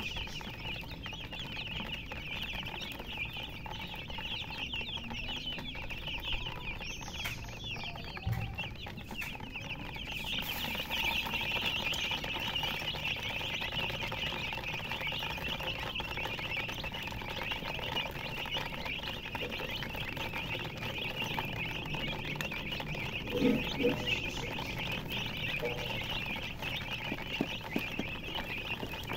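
A brood of baby chicks peeping continuously, a dense high-pitched chirping of many birds at once that grows louder about ten seconds in. About two-thirds through there is a brief, louder, lower sound.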